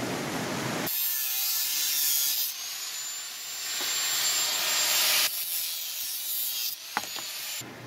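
Angle grinder cutting through a metal pipe: a thin, high motor whine over a harsh grinding hiss. It breaks off and restarts abruptly a few times.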